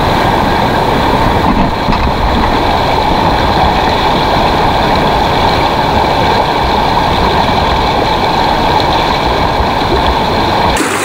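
Loud, steady rush of a fast river rapid close to the microphone, the water churning around the wader's legs. The sound changes abruptly near the end.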